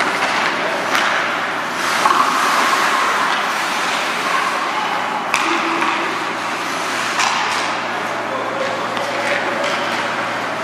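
Ice hockey game in a rink: a steady wash of skates scraping the ice over a low hum, with two sharp clacks, about a second in and again past five seconds, and faint voices in the background.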